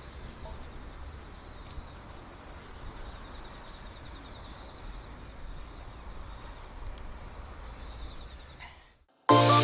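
Outdoor ambience: a steady low rumble with faint high chirping calls. It fades out about nine seconds in, and electronic music starts right at the end.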